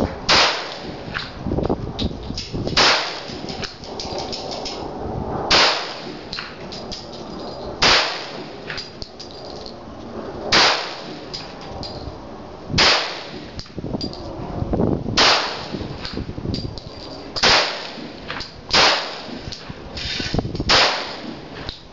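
Two 1911 .45 ACP pistols fired one in each hand: about ten loud shots, two to three seconds apart at first and coming quicker near the end, with fainter pops in between.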